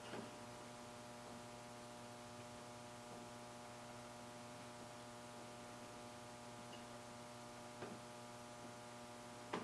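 Faint steady electrical hum, a buzz with many overtones, with a few soft clicks: one near the start, one about eight seconds in and one near the end.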